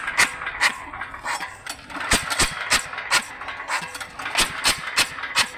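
Single-cylinder diesel engine of a 9 HP power weeder running unevenly, with sharp knocks at an irregular pace of about two or three a second, on test after a new injector spray nozzle was fitted.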